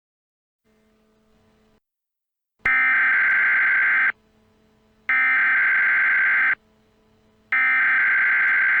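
Emergency Alert System SAME header tones: three bursts of rapid digital data tones, each about a second and a half long with about a second between them. This is the coded header that opens an emergency alert broadcast.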